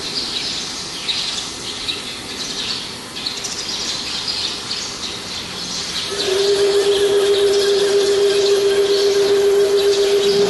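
Eastar CNC-300 slotting machine's motor starting a steady hum about six seconds in and holding, as an axis is jogged with the handheld MPG handwheel. High twittering chirps run throughout.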